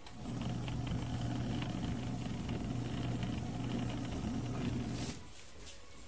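Motor of a portable mini washing machine humming steadily as it runs, then stopping abruptly about five seconds in.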